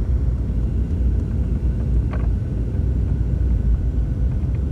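Steady low rumble of an airliner cabin on approach to landing: engine and airflow noise heard from inside the fuselage.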